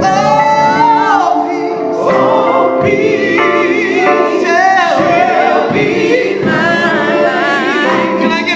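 Male gospel vocal group singing a slow song with accompaniment, the voices bending and wavering on long held notes.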